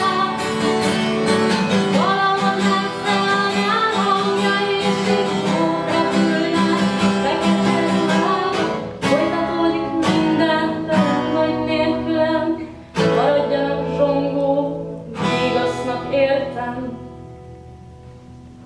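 Acoustic guitar strummed under a woman's singing, then a handful of single chords struck about a second or two apart and left to ring as the song ends, fading out near the end.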